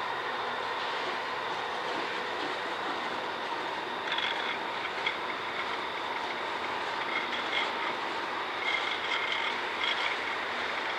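Freight train cars rolling steadily across a steel girder bridge, a continuous rumble of wheels on rail. From about four seconds in, short high-pitched squeals from the wheels come and go.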